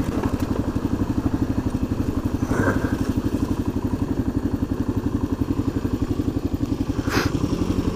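Single-cylinder dual-sport motorcycle engine idling steadily with an even, rapid thumping pulse. Two brief clicks come through, a few seconds in and again near the end.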